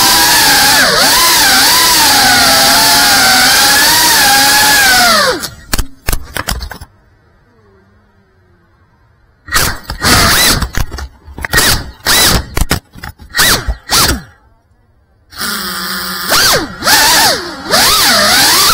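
FPV quadcopter motors whining, the pitch rising and falling with the throttle. About five seconds in the sound cuts off to near silence, then comes back as a string of short bursts, drops out again, and picks up steadily near the end.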